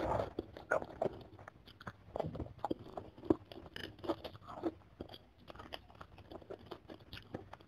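Close-miked chewing and biting on bone-in chicken pieces from a chicken soup, with many small irregular crunches and clicks.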